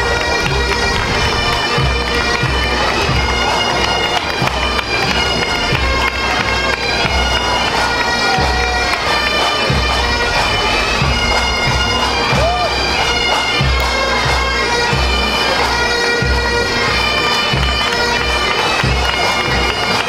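Bagpipes playing a tune over their steady drone, with irregular low thuds underneath.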